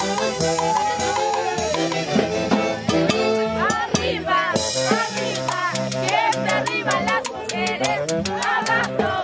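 A live band of saxophones and a drum kit plays lively festive dance music, the melody instruments over a steady beat of cymbal and drum strokes.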